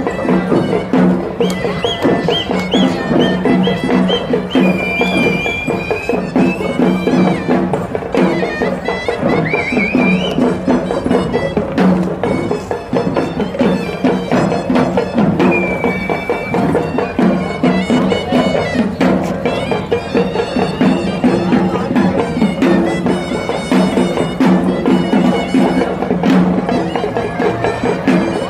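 Traditional Sri Lankan procession music: a reedy wind instrument plays a wavering, gliding melody over a steady drone, with dense, continuous drumming.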